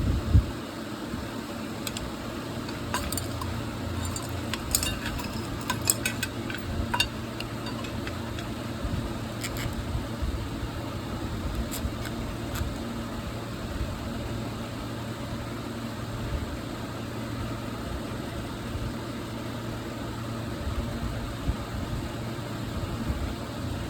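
A 9-inch exhaust fan running with a steady low hum, with light clicks and rattles scattered through the first half.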